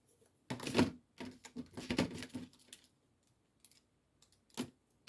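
Irregular light clicking and rustling of a small container and packaging being handled, with one more sharp click near the end.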